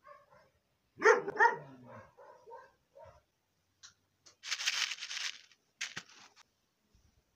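An animal calls in a string of short cries during the first three seconds, loudest about a second in. Then a plastic seed packet crinkles in two spells as it is handled.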